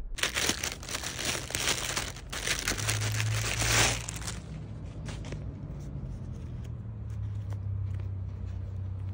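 Clear plastic packaging bag crinkling loudly as a wrapped item is pulled out of it, for about four seconds, then fainter rustling as the non-woven dust bag is handled, with a steady low rumble underneath.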